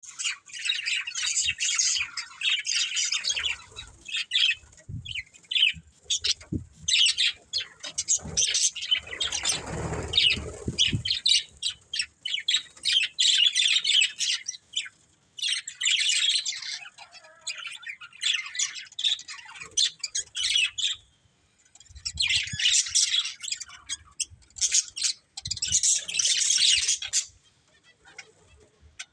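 Budgerigars chirping and chattering in fast, busy bursts with short pauses, and a brief low rustle about a third of the way in.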